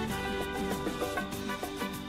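Upbeat background music with a steady beat and plucked notes.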